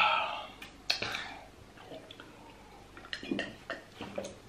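A loud open-mouthed 'ahh' right after a swallow of drink. A sharp tap follows about a second in, and soft gulps come near the end as a drink is swallowed from a glass jar.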